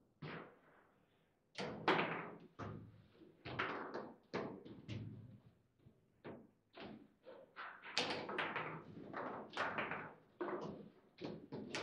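Foosball in play: a fast, irregular run of sharp knocks and thuds as the ball is struck by the rod-mounted plastic figures and rebounds off the table, with some louder slams.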